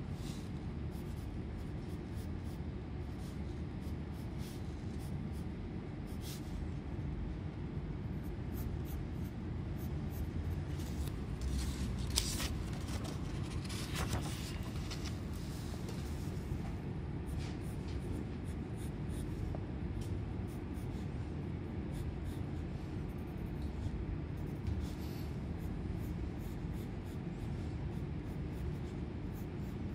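Graphite pencil scratching on sketchbook paper in short strokes, denser and louder about halfway through, over a steady low background hum.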